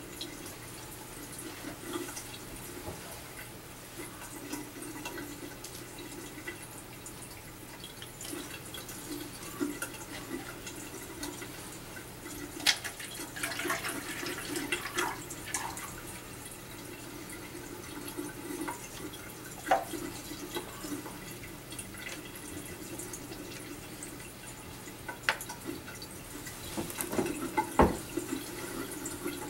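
Liquid poured from plastic bottles into a plastic cup, with a longer stretch of pouring about halfway through, and scattered knocks and clicks as the bottles and cup are handled, over a steady low hum.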